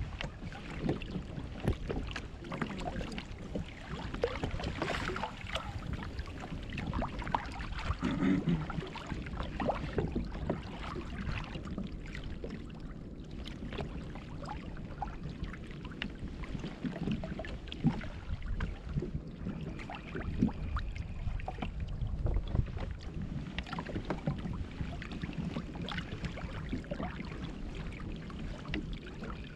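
Water lapping and slapping against a plastic kayak hull, with many irregular small knocks and a little wind on the microphone.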